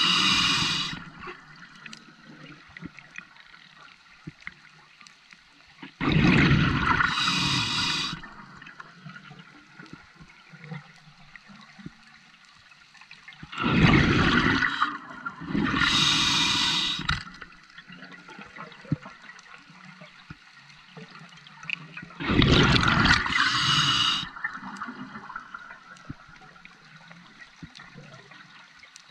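Scuba diver breathing through a regulator underwater: each breath is a loud rush of air and bubbles lasting two or three seconds. The breaths come about every eight seconds, with quiet water noise between them.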